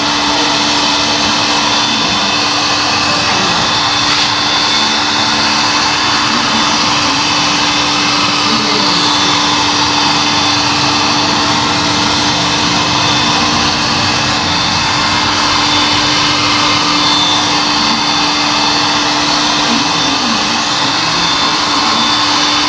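Electric heat gun running steadily: a constant rush of blown air with a steady low hum from its fan motor.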